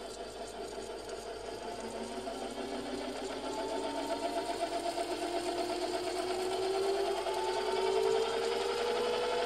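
Metal Master MMD-20LV drill-milling machine running, its gearbox and spindle whining steadily and rising in pitch and getting louder as it speeds up. The gears have just been greased after being found dry.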